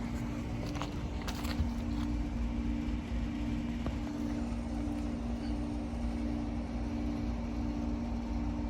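Old Lennox outdoor heat pump unit with a Climatuff reciprocating compressor running: a steady low hum of two tones, the upper one swelling and fading at a regular beat a little faster than once a second, over a low rumble.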